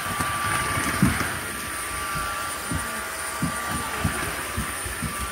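Washing (wet-dry) vacuum cleaner running with a steady motor whine, sucking up spilled dry cat food and water from the floor, with several low knocks as the head is pushed about.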